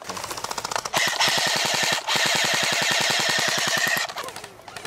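Airsoft electric guns firing full-auto: fainter rapid shots at first, then a loud burst of fast, evenly spaced shots with a steady high gearbox whine from about a second in, broken briefly once and stopping about a second before the end.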